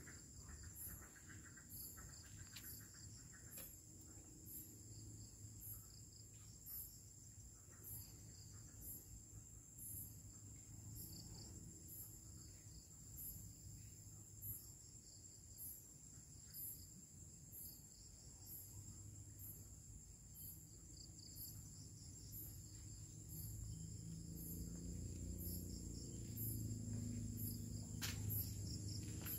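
Night insects, crickets, calling: a continuous high-pitched trill with a separate chirp pulsing about once a second over it. A low rumble swells near the end, with one sharp click just before it stops.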